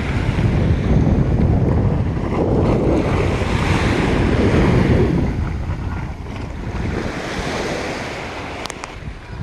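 Ocean waves washing up on the shore, swelling a couple of seconds in and then easing off, with wind buffeting the microphone.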